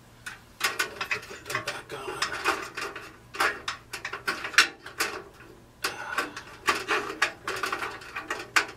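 Hands working at a metal fluorescent light fixture, with irregular clicking, rattling and scraping as its wires and lamp sockets are worked loose. It starts about half a second in.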